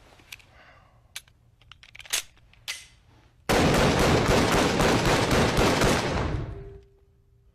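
A handgun fired in a rapid, continuous volley for about three seconds. A few scattered sharp knocks come before it.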